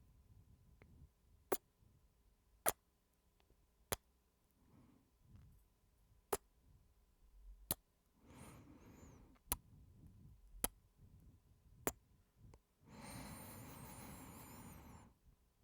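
Close-miked kisses: about eight short, sharp lip smacks a second or so apart, with soft breaths between and a longer breathy exhale near the end.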